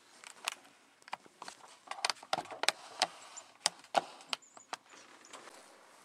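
A string of sharp knocks and clatters on wood, about a dozen over some four seconds, irregularly spaced, from someone moving about and handling things inside a wooden hunting blind.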